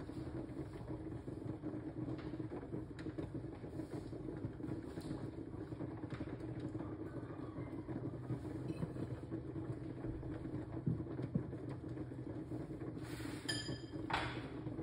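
Steady low hum and rush from a stovetop with pots on the burners, with a few faint clicks near the end.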